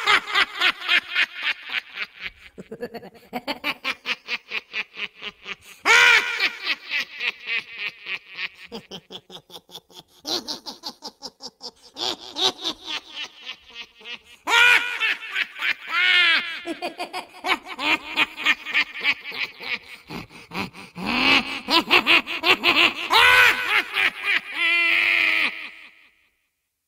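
Laughter in several long bouts of quick, high-pitched, rhythmic pulses, breaking off briefly between bouts and stopping near the end.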